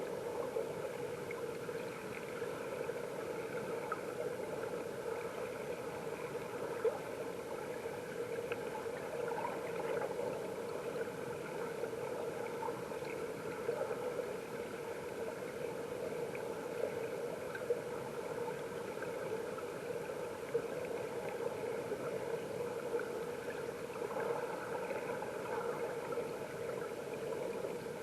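Mountain stream water rushing and gurgling, heard underwater through a submerged camera: a steady, muffled rush with a few short clicks.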